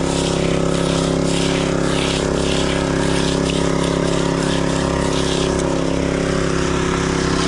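Gasoline engine of a concrete power trowel running steadily at constant speed.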